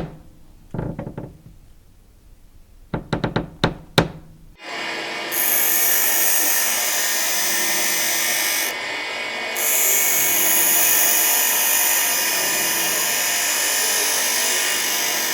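Several sharp knocks, then a power tool starts about four and a half seconds in and runs steadily, with a loud high hiss that drops out for about a second and comes back.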